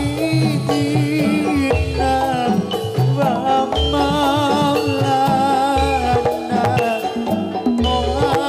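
Loud Javanese jathilan accompaniment music over a sound system: a singer's wavering, vibrato-laden vocal line over drum beats and pitched instruments.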